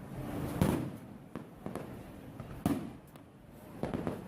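Fireworks exploding in a string of separate bangs, each trailing off in echo. The loudest come about half a second in and again past the middle.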